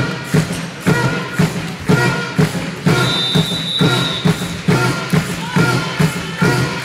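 Music with a steady beat of about two thumps a second, played over a sports hall's loudspeakers. About three seconds in, a high steady whistle-like tone sounds for about a second and a half.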